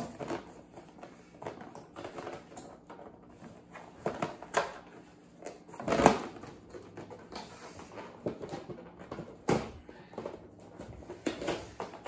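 Small cardboard accessory boxes being handled and opened by hand: scattered scrapes, taps and knocks of cardboard. The loudest knock comes about halfway through, and another a few seconds later.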